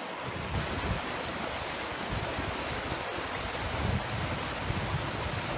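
Creek water rushing and churning over rocks below a concrete wall: a steady, even rush with uneven low buffeting underneath.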